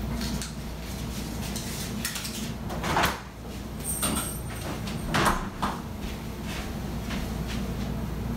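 Refrigerator door opened and closed: one louder knock as it opens about three seconds in, and another as it shuts about two seconds later, with small clicks of things moved inside.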